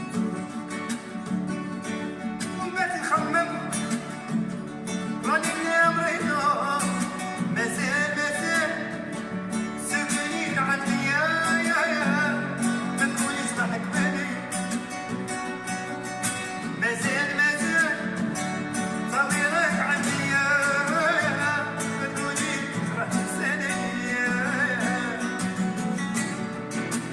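Background music: plucked guitar accompaniment with a wavering, ornamented melody line above it that comes in a few seconds in.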